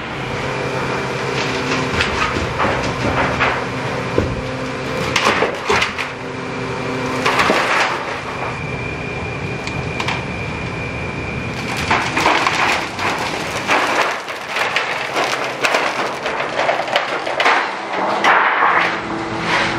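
Stainless steel sheets being handled: irregular clatters, scrapes and crinkling plastic film as the sheets are unwrapped, rolled and set down, over a steady machine hum.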